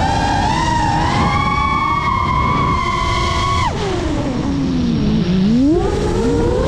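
FPV quadcopter's motors whining at a high, steady pitch, then dropping sharply a little past halfway as they slow, sliding down for about a second and a half before rising again as they speed back up.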